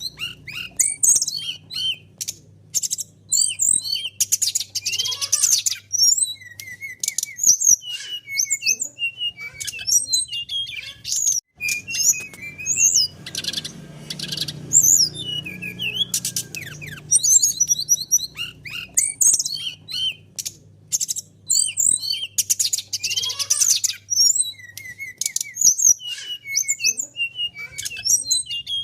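Brown-chested jungle flycatcher (SRDC) singing a long, varied song of rapid high-pitched chirps, short trills and quick whistled notes, with a faint low hum beneath.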